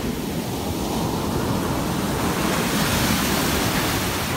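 Ocean surf washing in over a sandy beach, the foamy wash of a broken wave swelling to a peak about three seconds in and easing off.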